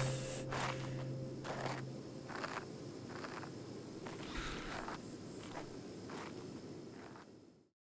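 Crickets chirping in a fast, even pulse on a night-forest soundtrack, with soft rustles about once a second. A low hum fades out about two seconds in, and the whole sound fades away near the end.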